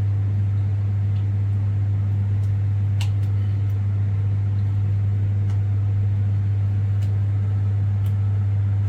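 A loud, steady low hum that never changes, with a few faint clicks or taps now and then.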